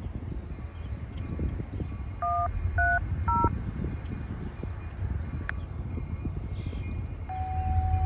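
Three short touch-tone (DTMF) dial beeps in quick succession, about half a second apart, followed some seconds later by one long steady tone, over a continuous low rumble that grows louder near the end.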